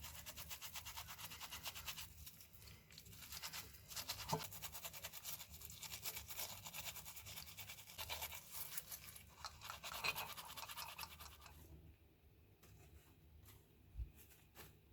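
Rapid back-and-forth scrubbing or brushing strokes on a small part, in a fast, even rhythm that stops about twelve seconds in. A few faint knocks and a low thud follow near the end.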